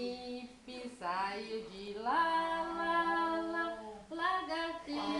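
A child singing without words: short rising notes, then one long held note about two seconds in, then a few short phrases near the end.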